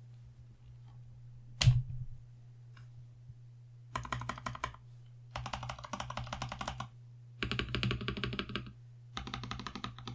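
Typing on a TM680 mechanical keyboard with Boba U4T tactile switches, foam-and-tape modded, under GMK Ishtar clone keycaps. There is one sharp loud knock about two seconds in, then four bursts of fast keystrokes with short pauses between them, over a faint steady low hum.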